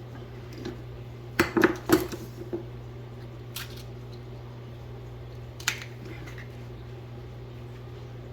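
Eggs being cracked into a mixing bowl: a few sharp taps and clicks, clustered about a second and a half in, then two single taps later, over a steady low hum.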